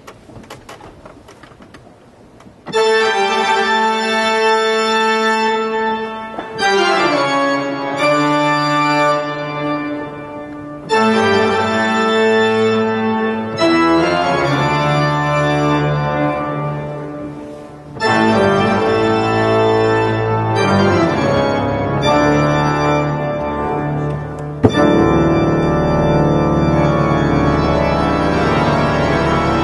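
The great pipe organ of St. Stephen's Cathedral, Passau, playing a toccata. After a quiet opening of nearly three seconds come loud, full held chords, separated by brief breaks and sudden changes of chord.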